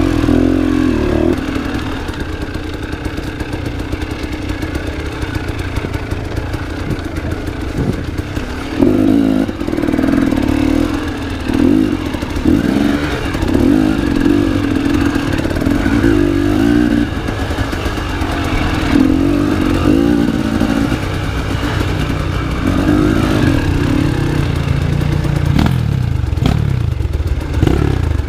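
Enduro motorcycle engine being ridden hard off-road, the revs rising and falling in repeated bursts of throttle lasting a few seconds each.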